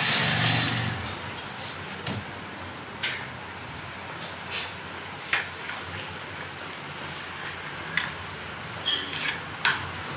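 Scattered light clicks and knocks of a puppy being held and handled on an exam table, a few seconds apart, over a low background; a brief noisy rustle in the first second.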